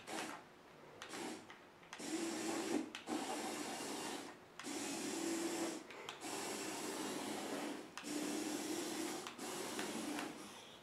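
Small electric tail-drive motor of a remote-control inflatable clownfish balloon whirring in repeated bursts of one to two seconds, with short breaks between them.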